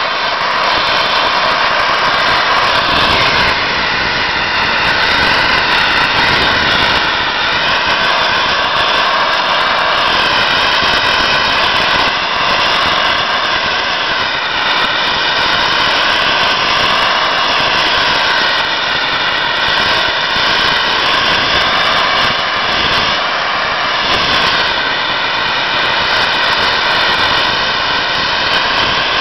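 Sandblaster nozzle blasting abrasive against a locomotive's steel cab side, stripping off the paint and numbers: a loud, steady hiss whose tone wavers slowly as the nozzle is swept over the panel.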